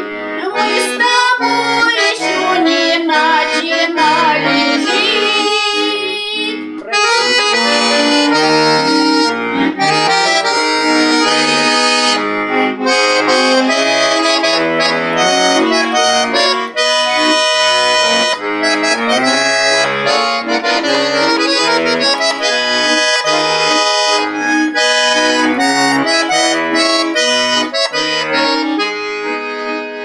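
Instrumental song accompaniment led by an accordion, playing a busy passage of melody and chords with no voice. It is loud and steady, with a short dip about seven seconds in.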